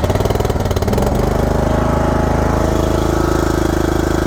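Ariens Mini Zoom 1434 zero-turn mower's 14.5 horsepower Briggs & Stratton engine running on choke just after starting, a little uneven for about a second, then settling into a steady run.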